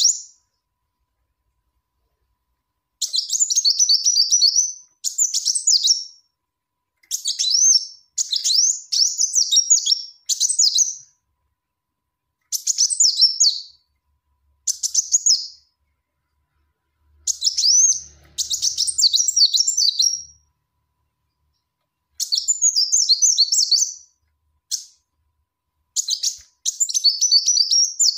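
Female Kolibri Wulung sunbird calling in short phrases of rapid, high, clear chirps, one to two seconds each with pauses between: the lure call a female uses to call a male.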